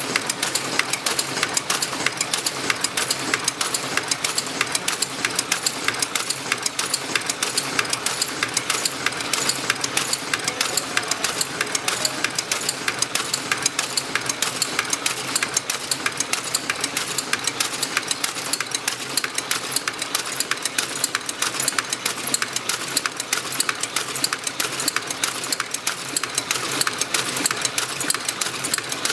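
Tea packaging machine running, a rapid, steady mechanical clatter of repeated clicks and knocks.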